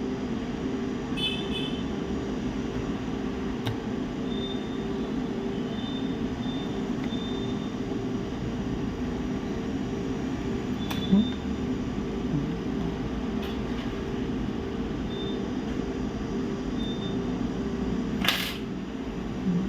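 Steady electrical hum at a repair bench, with a few sharp clicks and small knocks from handling parts, faint short high beeps, and a brief burst of hiss about 18 seconds in.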